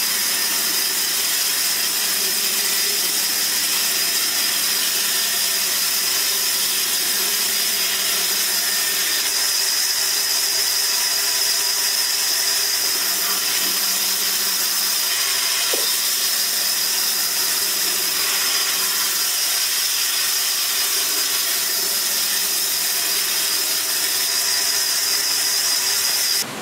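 Band saw cutting through a wooden plank: a steady, high-pitched hiss of the blade running through the timber, with a faint steady hum beneath.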